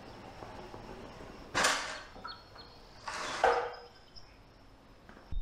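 Two short scraping clatters, one about a second and a half in and a longer one about three seconds in, as a mini bike is pushed across a concrete floor.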